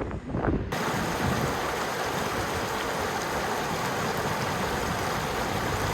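Wind buffeting the microphone, then, after an abrupt change about a second in, a steady even rush of running water, like a snowmelt stream or cascade.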